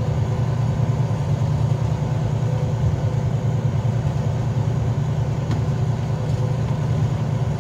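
Semi truck's diesel engine heard from inside the cab while driving, a steady low drone with no change in speed or load.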